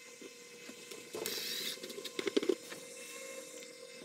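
Cordless drill briefly driving a screw into a metal mounting bracket, a short burst about a second in, followed by a few clicks and knocks as the tool and bracket are handled. A faint steady hum runs underneath.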